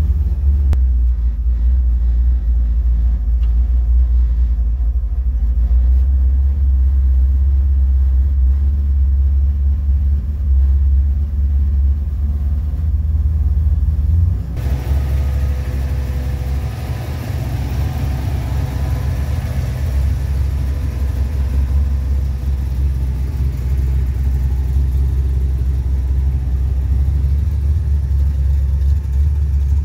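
Chevelle running on a drive, a heavy steady low rumble of engine and exhaust. About halfway through the sound changes suddenly, with more road and wind hiss over the rumble.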